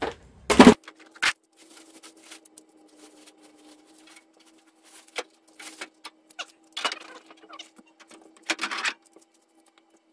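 Irregular clanks, scrapes and rustles of a sheet-metal car front panel and tools being handled and set down, the loudest clatter just under a second in. A faint steady hum runs underneath.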